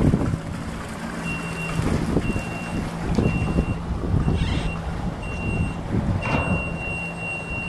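Electronic warning beeper sounding five half-second beeps at one high pitch, about one a second, then holding as one continuous tone near the end, over a low steady hum and wind on the microphone.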